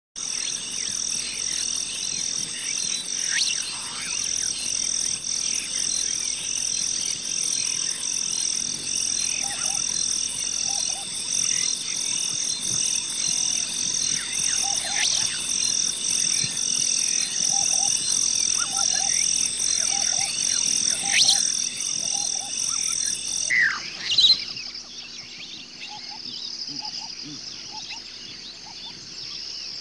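Frogs croaking in short, repeated calls over a steady, high-pitched pulsing chorus; the high chorus cuts off about 24 seconds in, leaving fainter calls and a few chirps.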